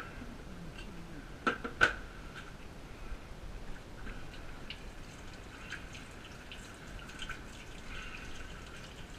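Water dripping and trickling into a stainless steel kitchen sink, with many small drip ticks. Two sharp knocks about a second and a half in are the loudest sounds.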